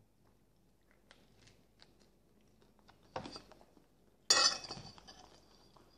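Quiet chewing with small mouth clicks, then a metal spoon knocking and scraping in a dish of chicken broth, once about three seconds in and loudest a little after four seconds in.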